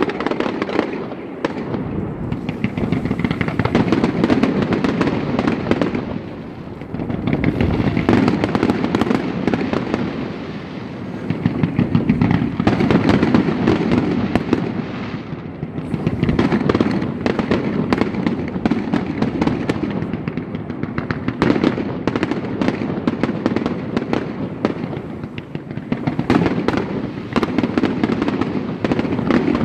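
Fireworks finale: a rapid, unbroken barrage of aerial shell bursts, bangs and crackling, overlapping throughout.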